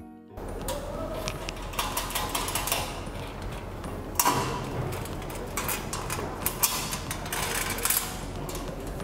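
Small metal clicks and taps as bolts are handled and threaded by hand into the leg brackets of a sheet-metal parts washer, with a sharper knock about four seconds in, over a low steady hum.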